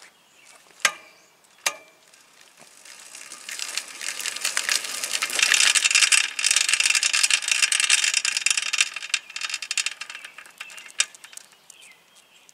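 Two knocks, then the rear hub and chain of a 2007 Felt cruiser with a Shimano coaster-brake hub, spun by the crank and let go, clattering with a dense, rapid rattle that builds, is loudest for several seconds and then dies away. The noise is the sign of a failing coaster-brake hub: the brake drags and grease is leaking from the dust seals.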